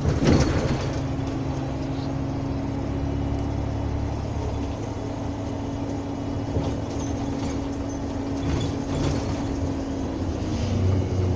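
Diesel engine of a MAN NL223 (Lion's City) city bus idling, heard from inside the cabin: a steady low hum with a thin steady whine over it that drops away near the end.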